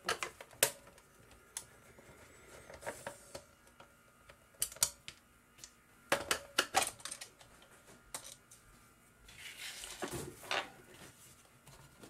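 Scattered clicks and taps of a small screwdriver, screws and the plastic housing of a kitchen food scale being taken apart, with a short scraping rustle about ten seconds in.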